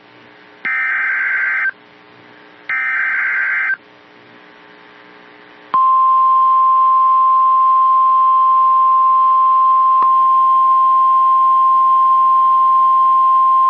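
Emergency Alert System SAME header: two one-second bursts of warbling digital data tones, the end of the three-burst header that encodes the alert. After a short gap, the single steady high warning alarm tone used by NOAA Weather Radio starts about six seconds in and holds, signalling a warning, here a tornado warning.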